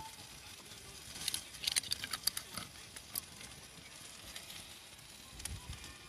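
A metal camping cup picked up off wooden logs: a quick run of sharp clicks and light clinks lasting about two seconds.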